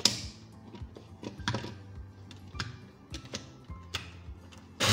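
Scattered plastic clicks and knocks as the bowl and lid of an electric onion chopper are fitted and pressed into place. Right at the end the chopper's motor switches on with a rising whine as it spins up.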